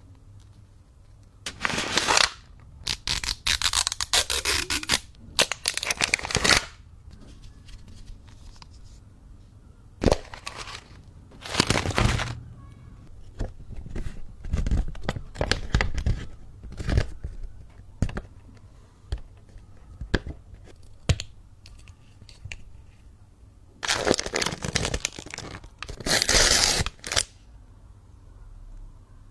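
Plastic toy packaging being torn open and crinkled, in several bursts of a few seconds each, with small clicks and taps of handling between them.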